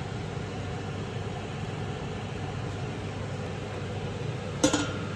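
Steady hiss with a low hum from a pot cooking on the stove, with a sudden louder burst of stirring or sizzling about four and a half seconds in.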